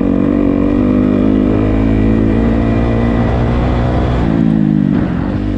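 Dirt bike engine running under way at steady revs; about four seconds in the revs drop, then pick up again near the end.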